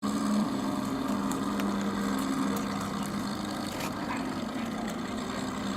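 Simulated piston-engine idle from the onboard sound-effects unit of an electric 1400 mm RC P-51 Mustang: a steady, low engine drone.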